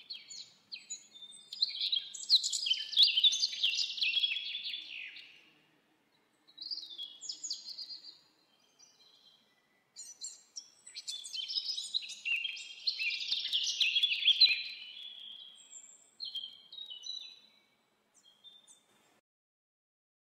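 A songbird singing: two long runs of rapid, jumbled high chirps, one starting about a second and a half in and another about eleven seconds in, with shorter phrases between and after.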